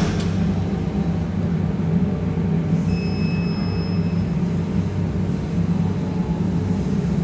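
Jewelry laser welding machine running with a steady low electrical hum. About three seconds in it gives one electronic beep lasting about a second, as it is switched on and starts up.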